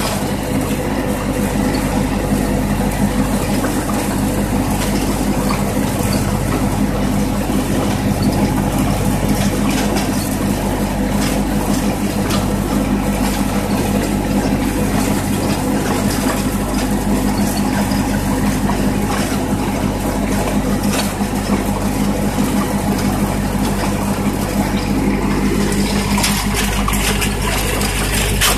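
1952 Ford tractor's four-cylinder engine running steadily at an even speed while the tractor rolls along, towing a tine rake through driveway gravel.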